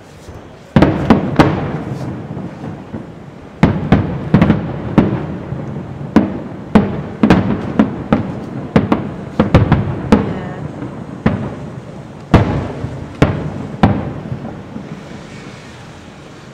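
Aerial firework shells bursting in quick succession: a string of sharp bangs, each trailing off in a rumble, that thins out near the end.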